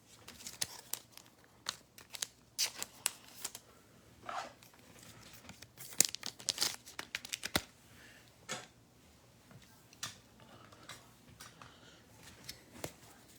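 Trading card packs and cards being handled: a wrapper tearing and crinkling, with a run of soft, scattered rustles and clicks.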